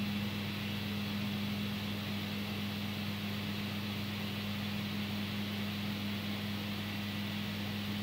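Steady hum of a running desktop workstation's fans and drives: a constant low tone under an even hiss.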